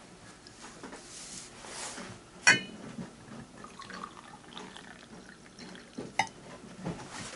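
A porcelain cup is set down with a ringing clink about two and a half seconds in, then coffee is poured from a glass server into it, faint and trickling, with another short clink about six seconds in.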